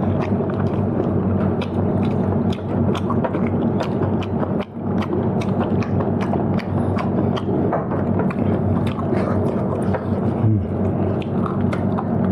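Someone eating close to the microphone: many irregular sharp clicks of chewing and utensils over a steady, loud rushing background noise.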